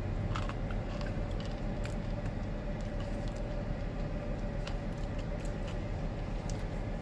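Steady low hum of an idling car, with a faint steady tone above it and scattered small clicks.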